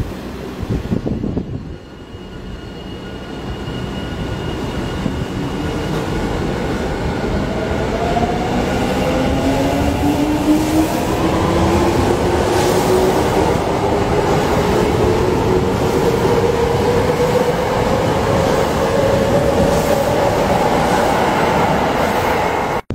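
Subway train pulling away: its electric motors give a whine that rises slowly in pitch as it picks up speed, over the running noise of the cars, which grows louder for about ten seconds and then holds. The sound cuts off suddenly near the end.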